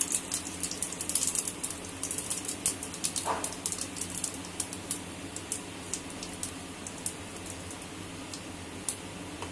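Cumin seeds and whole spices crackling in hot mustard oil, a rapid patter of small pops that thins out over the second half.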